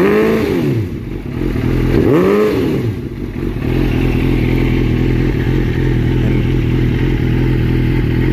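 2003 Suzuki GSX-R750's inline-four engine through a Big Gun Evo R series slip-on exhaust, revved twice in quick blips, once at the start and again about two seconds in, each rising and falling back, then settling into a steady idle.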